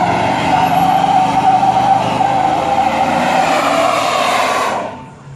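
Chevrolet Silverado pickup driving past close by with its tires squealing in a loud, steady screech and its engine working hard; the sound cuts off suddenly near the end.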